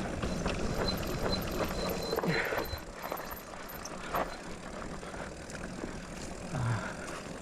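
Electric mountain bike riding down a dry, rutted dirt trail: steady tyre and trail noise with scattered clicks and rattles from the bike, and a faint high intermittent whine in the first few seconds.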